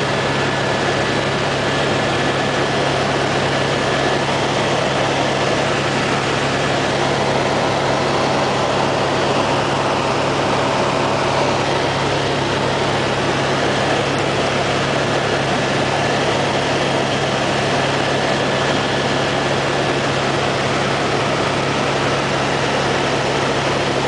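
Helicopter in flight, heard from inside the cabin: a steady drone of engine and rotor with a low hum and a thin high whine that holds an even pitch.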